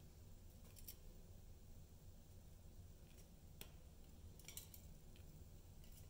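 Near silence: a low room hum with a few faint, sharp clicks scattered through, the most distinct a little past halfway.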